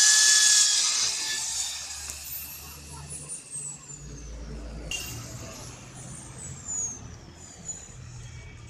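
Cordless drill boring into a PVC door-frame profile: a loud, hissy burst that is loudest in the first second and then trails off, with a high whine falling in pitch. A second sudden hiss comes about five seconds in.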